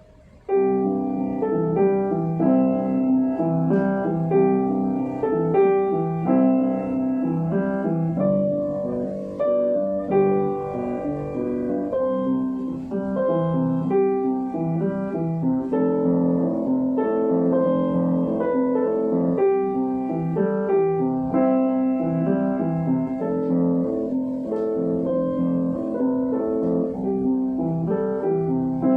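Piano playing a steady flow of notes and chords, starting abruptly about half a second in.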